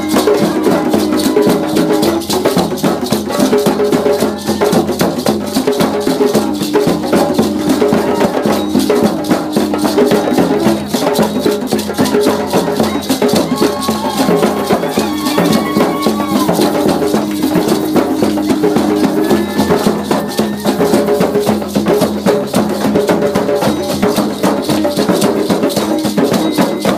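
Group hand drumming on frame drums with rattles, a fast, steady beat, with long held notes sounding over it for several seconds at a time.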